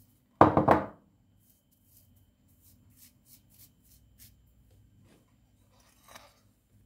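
Flour being sifted through a small hand-held wire-mesh strainer: faint, quick rustling ticks, two or three a second, as the strainer is shaken over the bowl. A loud thump comes about half a second in.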